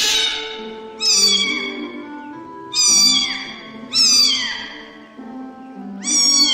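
A cat meowing repeatedly: five high-pitched meows about a second apart, each falling in pitch at the end, over background music.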